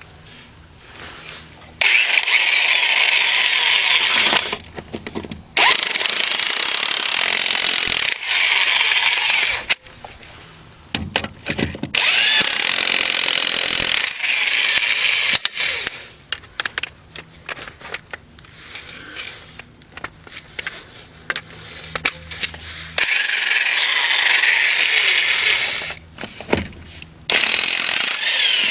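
Craftsman 7.5-amp corded electric impact wrench hammering lug nuts loose, in several bursts of one to three seconds with short pauses between. It breaks each nut free without hesitating.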